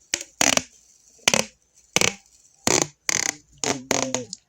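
Adhesive tape pulled off the roll in short jerks: about seven brief ripping pulls with short gaps between them.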